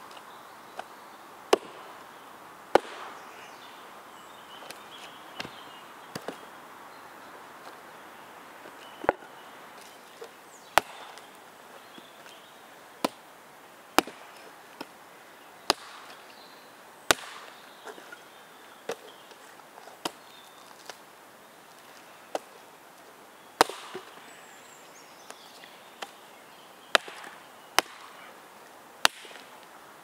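Forged-iron Megaton axe chopping wood: sharp single blows at irregular intervals, roughly one every one to two seconds, about twenty in all.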